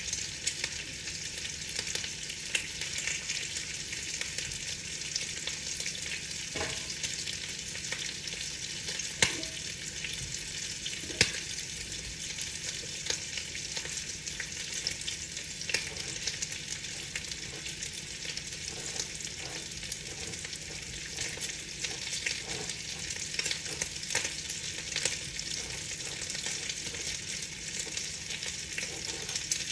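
Steady rain pattering on a window pane: a dense hiss of fine drop taps, with a few sharper single drop hits standing out now and then.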